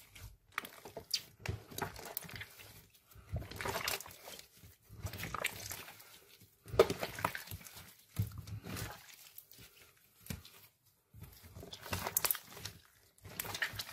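Hands kneading, folding and squeezing fluffy slime mixed with small beads: wet squelches and crackling air pops in irregular bursts with short pauses, and one sharp pop about seven seconds in.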